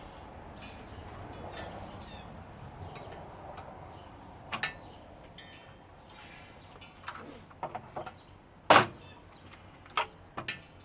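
Scattered clicks and knocks of metal and plastic parts being handled while a CRT television is stripped for scrap, with a loud knock about nine seconds in and another a second later.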